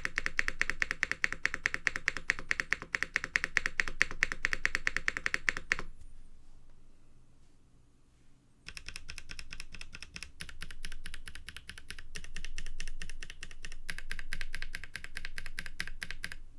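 Mechanical keyboard with Boba U4T tactile switches (KBD8x MKII): single keys pressed rapidly over and over with a deep, thocky clack. A fast run of keystrokes is followed by a pause of a couple of seconds. Then another run follows in which the key changes a few times, each with a slightly different pitch to its clack.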